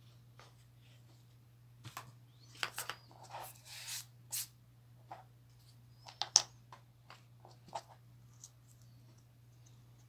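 Hands handling small craft pieces on a work table: scattered taps, clicks and short rustles, the sharpest click about six seconds in, over a steady low hum.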